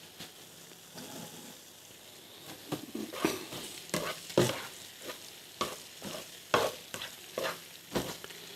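Sliced onion frying in oil in a frying pan, sizzling, while a utensil stirs it; from about two and a half seconds in the stirring comes as a series of short scraping strokes against the pan, one or two a second. The onion is being browned.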